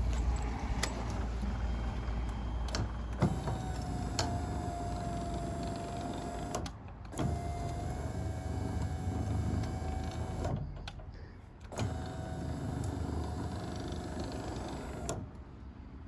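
Aftermarket Toyota power-window motor working as the nozzle drive motor of a Scag Windstorm blower, whining steadily as it turns the nozzle. It runs in three spells of about three seconds, with short pauses between them and a click at each start and stop; the replacement motor works.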